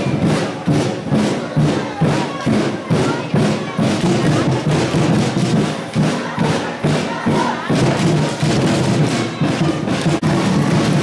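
Music with a steady thumping beat, about two beats a second, with crowd voices underneath.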